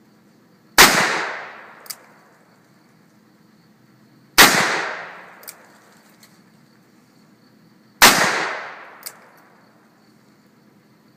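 Ruger .357 Magnum revolver with a 6-inch barrel firing 158-grain rounds: three loud shots about three and a half seconds apart, each trailing off over about a second, with a short click about a second after each shot.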